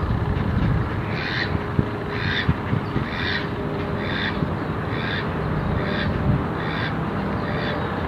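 White domestic ducks quacking: a duck gives a steady series of short calls, about one a second, over a steady background noise.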